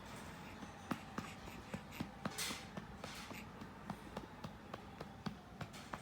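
A hand patting a baby's back to bring up a burp: a run of soft, irregular taps, about two or three a second, with a brief rustle about two and a half seconds in.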